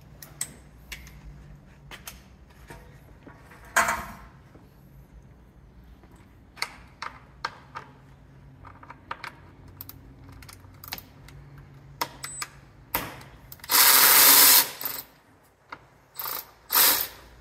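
Cordless ratchet backing out radiator-support bracket bolts, in short runs: a brief one near four seconds in, a longer run of about a second around fourteen seconds, and two short bursts near the end. Scattered clicks and clinks of the tool and fasteners come in between.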